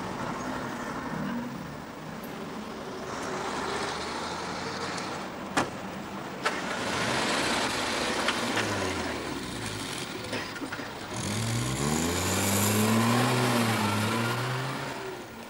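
Small car engine, a classic Mini, running and revving up as it pulls away, its pitch rising and swelling in the second half, over steady traffic noise. Two sharp knocks come about a second apart in the middle.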